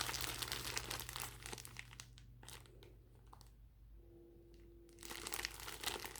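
Plastic packaging crinkling as it is handled, with sharp crackles for the first couple of seconds, a lull, then more crinkling near the end.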